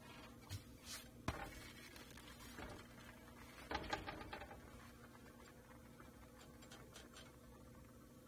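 A flour tortilla being turned and settled on a cast-iron griddle: a few small clicks and a sharp tap in the first second and a half, then a brief cluster of rustling taps a little before halfway. A faint steady hum runs underneath.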